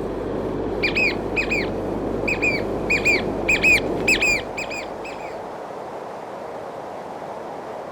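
A bird calling in a run of short, sharp, repeated notes, in small groups of two or three, that stop about two-thirds of the way through, over a steady rushing background.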